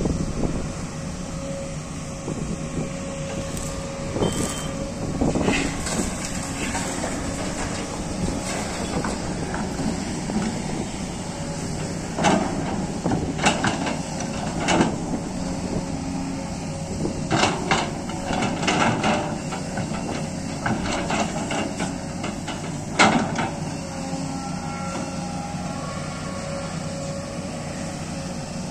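Sany crawler excavator's diesel engine running steadily under hydraulic load while loading earth into a dump truck. Sharp knocks and clanks come in clusters as the bucket dumps earth and stones into the truck's steel body, and the loudest knock comes near the end.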